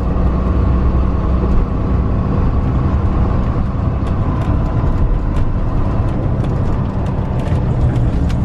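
Engine and road noise of a Dynamax DX3 motorhome heard from inside the cab, a steady low rumble while cruising along a city street.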